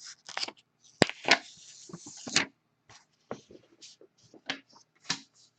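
Trading cards and their plastic sleeves being handled: scattered soft clicks and rustles, with a longer sliding rustle about a second in.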